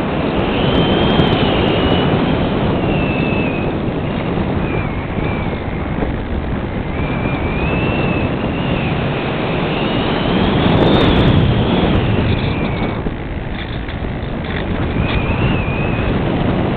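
Multiplex Cularis model motor glider's electric motor and propeller running, heard from a camera on board, with a thin whine that rises and falls in pitch as the throttle changes. Heavy wind rush on the microphone runs under it.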